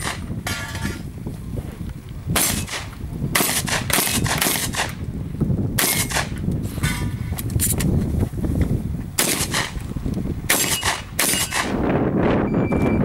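Shotgun fired in quick bunches of shots, about a dozen in all with short pauses between bunches, some shots followed by a brief metallic ring from steel targets. Near the end comes a short steady electronic beep from a shot timer.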